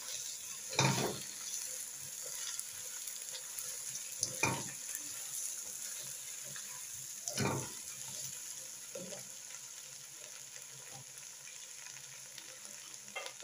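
Chicken pieces sizzling in hot oil with browned onions, ginger and garlic in a pot, turned with a silicone spatula. A steady hiss, with three louder stirring strokes about one, four and a half and seven and a half seconds in; the sizzle eases a little in the second half.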